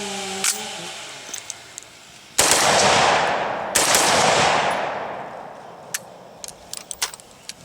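An AR-15 rifle firing two shots about a second and a half apart, each followed by a long, fading echo. The rifle is cycling again after a sand-packed bolt malfunction was cleared. A few faint clicks follow.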